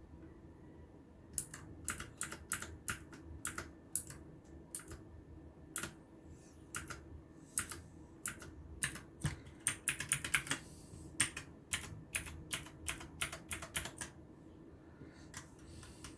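Typing on a modded RAKK Pluma 68-key mechanical keyboard: irregular key clacks that begin about a second in, with a quick run of keystrokes in the middle, then thin out and stop near the end.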